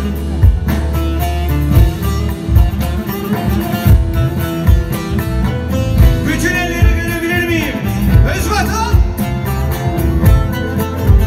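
Live Turkish folk band playing an instrumental passage: bağlama, clarinet, drum kit and keyboard, with a steady kick-drum beat about twice a second. A high, wavering melody line rises over the band about six seconds in.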